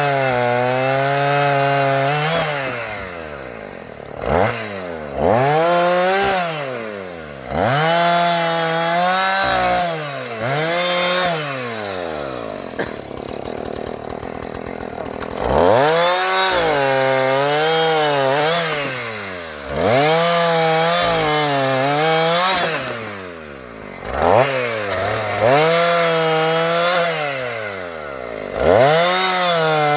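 Chainsaw revving up over and over and cutting into a felled tree trunk to buck it into pieces, its engine pitch wavering under load and falling back between cuts. About twelve seconds in it drops back to idle for a few seconds before revving up again.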